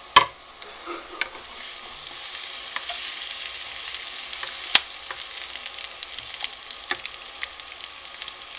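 Diced onions sizzling in olive oil in a nonstick frying pan, the sizzle swelling from about a second and a half in as they soften for a risotto base. A wooden spatula stirs them, knocking sharply against the pan near the start and about halfway, with lighter taps between.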